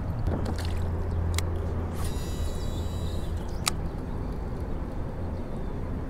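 Wind rumbling steadily on the microphone, with two sharp clicks, likely from the fishing reel, about a second and a half and three and a half seconds in.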